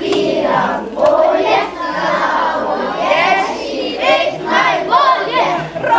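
A group of children singing a song together in Slovenian.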